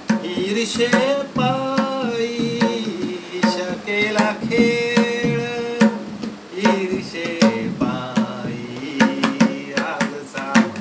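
Tabla pair played by hand, with a man singing a Marathi devotional abhang over it in a wavering, ornamented line.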